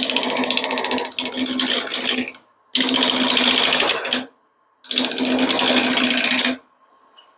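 Turning tool cutting into a rectangular walnut blank spinning on a wood lathe, a loud rapid clatter as the blank's corners strike the tool edge. It comes in three cuts of one to two seconds each, stopping briefly between them.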